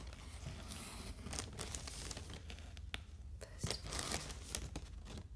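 Crinkling and rustling of plastic air-cushion packaging and paper, with short sharp ticks and scratches, as items are handled in an open cardboard box.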